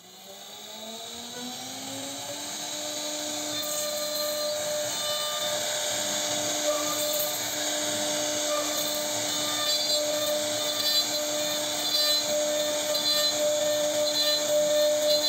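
CNC router spindle carving wood: its whine rises in pitch over the first two seconds, then holds a steady high note while the bit cuts, with a hiss of cutting on top. It grows louder over the first few seconds.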